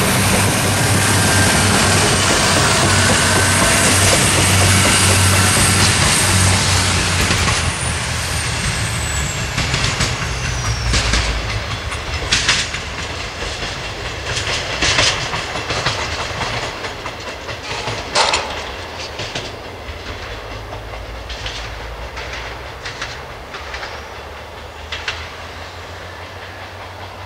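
Diesel railcar passing close with an engine rumble and rushing wheel noise, then fading into the distance. As it recedes its wheels click and knock over rail joints and points, now and then with a sharp crack.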